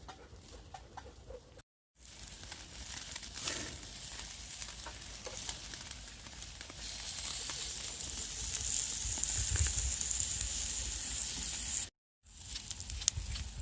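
Food sizzling as it cooks on a hot pan, growing louder about seven seconds in, broken by two short silences.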